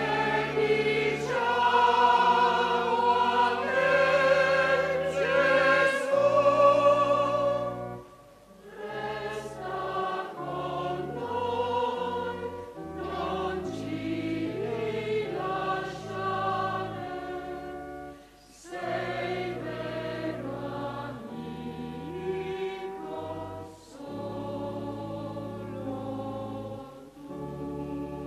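Choir singing a slow sacred hymn in long held chords, phrase by phrase, with brief breaks between phrases about eight and eighteen seconds in. The first phrase is the loudest, and the rest is softer.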